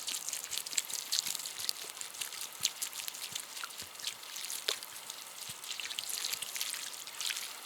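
Water hissing and crackling on the glowing embers of a campfire as it is doused, with many small sharp pops.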